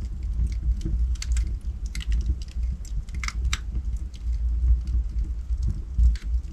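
Logs burning in a fireplace: irregular sharp crackles and pops of the firewood over a steady low rumble of the flames, with the crackling thickest about three seconds in.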